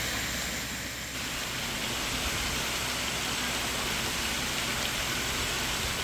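Pond fountain jets spraying and splashing back onto the water: a steady rushing hiss, a little louder from about a second in.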